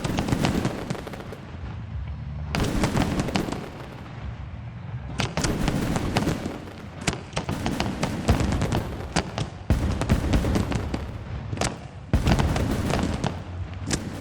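Aerial fireworks shells bursting: a dense run of sharp bangs and crackles over deep rumbling booms. It comes in several loud waves with short lulls between them.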